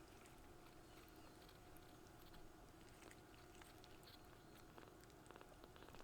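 Near silence: faint steady room hum with scattered faint small ticks and rustles, a few quick clusters of them near the end.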